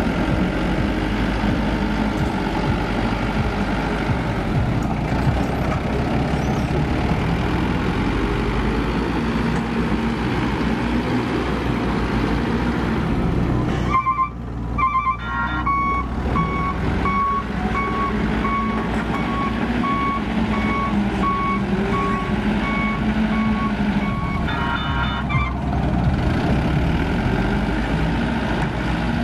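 Yellow dump truck's diesel engine running steadily, with its reversing alarm beeping in an even series of short beeps for about ten seconds in the middle.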